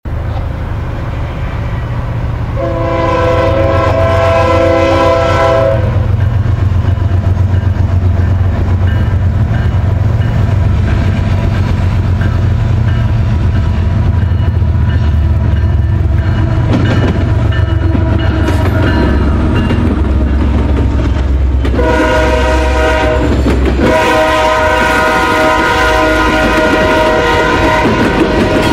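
Ferromex freight train led by a GE ES44AC and an EMD SD70ACe diesel locomotive passing close by: a steady low rumble of the locomotive engines builds over the first few seconds, and the locomotive air horn sounds one long blast a few seconds in, then two more long blasts with a short break near the end. As the covered hopper cars roll past, their wheels clatter over the rails.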